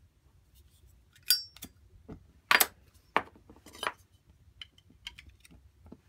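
Sharp metallic clicks and clinks as the Zippo hand warmer's metal burner unit and case are handled and fitted together, a dozen or so in irregular succession. The loudest comes about two and a half seconds in, and one near the start rings briefly.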